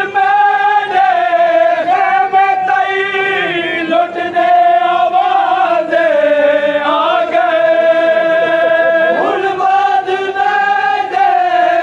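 Men's voices chanting a Shia noha (Muharram mourning lament) in unison, in long held notes. The pitch dips about six seconds in and climbs back about nine seconds in.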